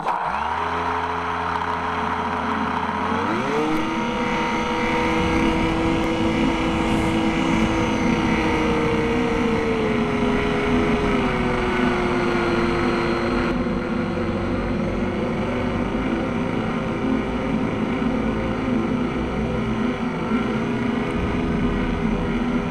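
Electric motor and pusher propeller of a Multiplex Easystar RC model plane, heard from its onboard camera. A low whine jumps to a higher steady whine about three seconds in as the throttle opens for flight, over a constant rush of air. The pitch eases down a little about ten seconds in.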